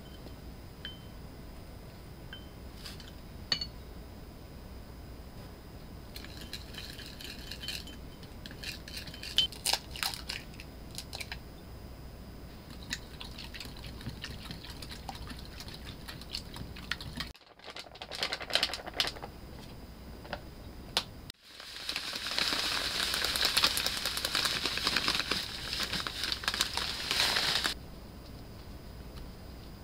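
A metal spoon clinks lightly against a small ceramic cup while a dipping sauce is stirred. Then a wire whisk beats eggs in a glass bowl, a fast, dense clatter that is loudest over several seconds near the end and stops abruptly.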